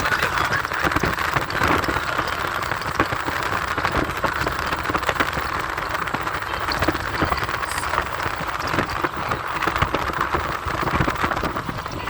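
Car on the move: a steady rush of road and tyre noise, dense with small clicks and patters.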